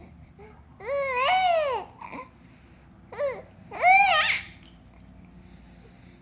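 Three pitched vocal calls: a drawn-out one about a second in, a short one at about three seconds and another drawn-out one just after, each arching up and then down in pitch.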